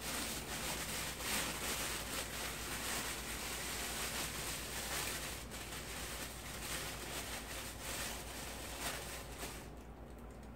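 Continuous crackly rustling full of small clicks, like something being handled at close range. It stops abruptly near the end.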